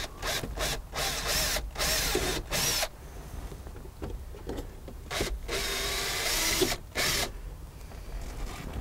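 Cordless drill/driver driving a screw into plastic, run in several short spurts over the first few seconds, then a longer run about five seconds in after a pause.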